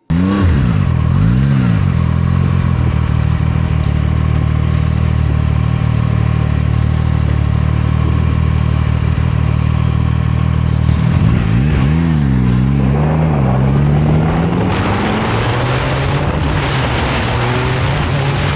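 Zontes 703RR sport bike's inline three-cylinder engine running, with two quick throttle blips right at the start and two more about twelve seconds in. It then pulls away and accelerates, with wind noise building over the exhaust note.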